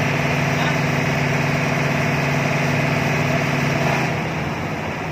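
Diesel engine of a Hitachi hydraulic excavator running steadily, a low even drone that drops in level and changes note about four seconds in, as if throttled back.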